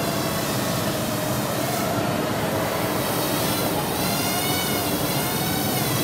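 Parrot Airborne Cargo mini quadcopter's four small motors and propellers whining steadily in flight. The pitch wavers up and down as it manoeuvres, most of all in the second half.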